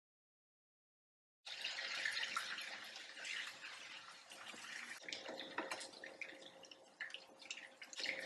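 Chicken pieces deep-frying in hot oil, a dense sizzle with many small crackles and pops. It starts suddenly after about a second and a half of silence and is loudest just after it starts, then settles to a steady frying sizzle.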